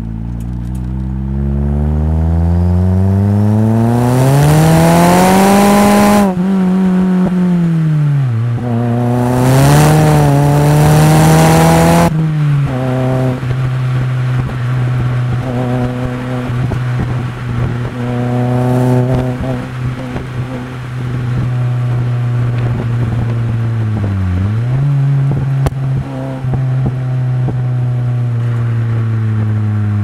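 Mitsubishi Colt CZT's turbocharged 1.5-litre four-cylinder heard through an exhaust-mounted microphone. It pulls hard twice, with the revs climbing steeply and a loud rushing sound on each pull, and the revs drop abruptly about six and twelve seconds in as it upshifts. After that it cruises at steady revs, with a brief dip and recovery about two-thirds of the way through.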